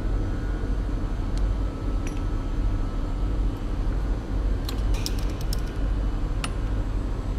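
Steady low machine hum, with a few light clicks and a quick cluster of sharper clicks about five seconds in as a small engraving cutter is handled and slid into the nose of a tapered tool holder.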